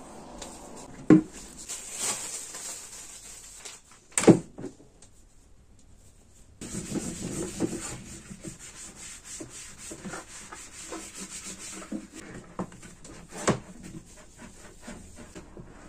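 Rubbing and rustling handling noises with three sharp knocks, about a second in, about four seconds in and near the end, as papers and a plastic wastebasket are handled.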